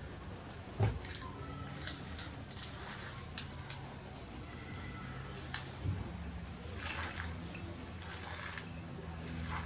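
Dried herb leaves being stripped from their stems and crumbled by hand over a ceramic plate: irregular dry crackling and rustling, with a soft knock about a second in. A faint steady low hum sits underneath.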